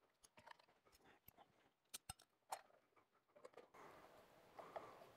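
Faint, scattered clicks and ticks of a screwdriver driving screws into a plastic electrical junction box and its cover.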